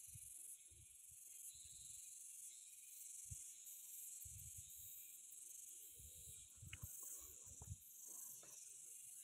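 Near silence: a faint, steady, high-pitched chorus of insects, with soft low thumps scattered through it, clustered in the first two seconds and again around four and six to eight seconds in.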